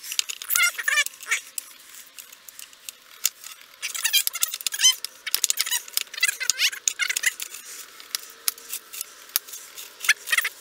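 Bursts of high-pitched chirping and squeaking, loudest about half a second in and again around the middle, with a few faint clicks of metal parts being handled.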